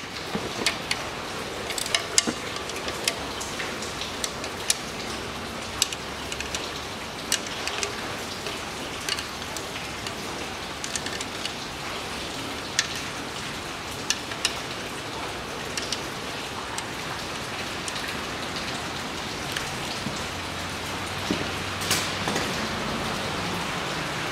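Scattered light metallic clicks of a socket driver on the CVT oil pan bolts as they are given a second tightening pass, the first-tightened bolts still taking more turn. A steady hiss runs underneath, and a faint low hum comes in near the end.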